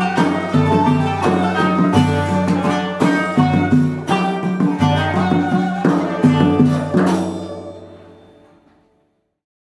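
Turkish classical ensemble playing the close of a peşrev in makam Hicaz: kanun and plucked lutes over kudüm kettle-drum and frame-drum strokes. A final stroke about seven seconds in rings out and fades to silence.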